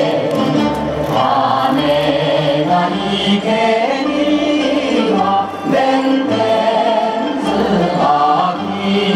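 Japanese folk dance song (min'yō) with group singing over a regular low drum beat, played loud for the umbrella dance.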